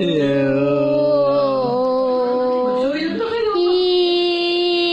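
A boy singing, holding long notes: a note that bends slightly, a change of pitch about three seconds in, then a steady higher note held near the end.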